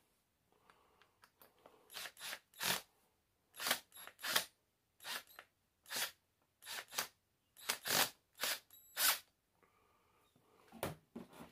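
Cordless drill driving a self-tapping screw into metal without a pilot hole, in short stuttering bursts: about fifteen brief scraping, grinding clicks, roughly two a second, starting about two seconds in, as the screw point and bit bite and slip on the metal.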